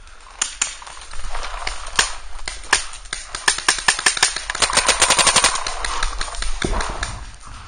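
Paintball markers firing: scattered single shots, then fast strings of shots about three and a half to five and a half seconds in.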